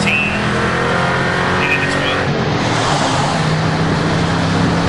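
Ford Mustang GT's V8 engine and road noise heard from inside the cabin while driving. The engine note climbs slightly, changes about two seconds in, and then settles into a steady drone.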